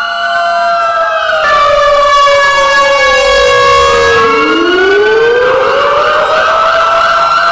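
Several tornado warning sirens sounding together. Their pitches slide down over the first few seconds, then one winds back up from low about four seconds in and settles on a steady high tone.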